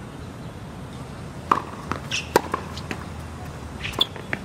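Tennis rally on an outdoor hard court: sharp pops of the ball being struck and bouncing, the two loudest about one and a half and two and a third seconds in, with fainter taps and a few short high squeaks.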